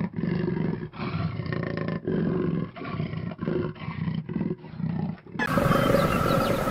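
A big cat roaring in a series of strokes: the first about a second long, then shorter and quicker. About five seconds in it cuts off and gives way to a steady noisy background.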